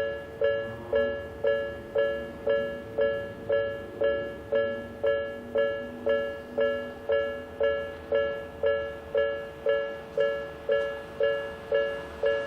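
Japanese railway level-crossing electronic warning bell ringing steadily. It strikes about twice a second, each strike two tones together that start sharply and fade quickly. The uploader takes it for the Hakone type, or possibly the Nikko type.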